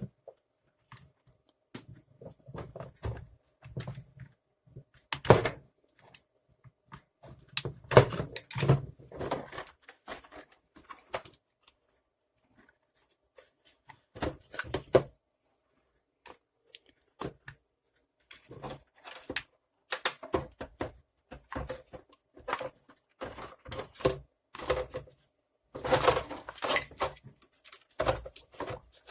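Hoover T2424 vacuum cleaner parts being handled during disassembly: irregular knocks, clicks and clattering, in clusters with short quiet gaps.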